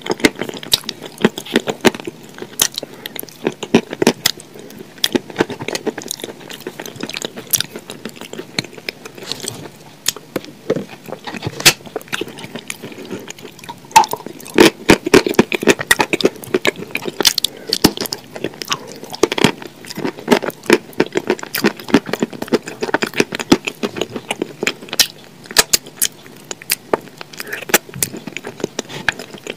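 Wet, sticky eating sounds of a thick paste scooped up by hand and eaten: lip smacks and chewing with many sharp, irregular clicks.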